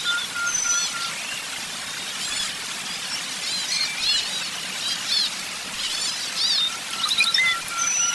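Several songbirds chirping and singing together in quick, high, overlapping calls and trills. A steady series of short, evenly spaced, lower notes, about four a second, repeats in the first second and again near the end.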